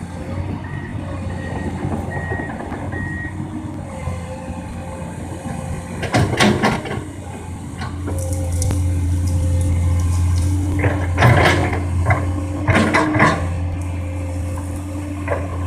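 Komatsu PC200 excavator's diesel engine running steadily, working harder about halfway through, with a run of about five short high beeps in the first few seconds and several sharp knocks and clanks of the machine at work.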